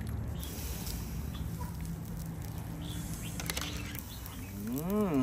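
Hot water dripping and splashing back into a pot as blanched rice noodles are lifted out in a wire-mesh strainer, over a steady low hum. Near the end comes a short call that rises and falls in pitch.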